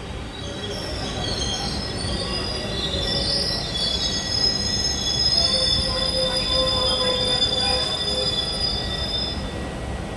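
Train wheels squealing against the rails in several high, wavering tones over the steady rumble of the moving train. The squeal grows loudest through the middle and fades near the end.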